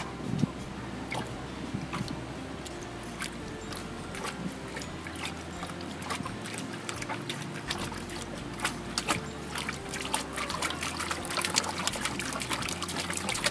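Water in a trough splashing and trickling as hands work a plastic float ball in the water, with small drips and splashes that grow busier and louder in the last few seconds.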